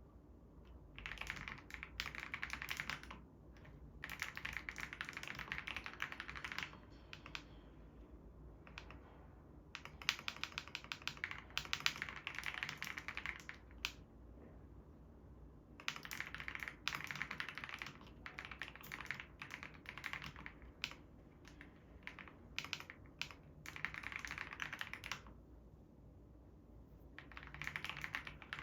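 Typing on a COX CF75 mechanical keyboard with orange switches: rapid runs of key clicks lasting a few seconds each, broken by short pauses.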